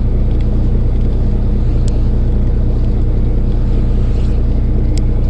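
Fishing boat's engine running with a steady low drone, with a couple of faint ticks over it.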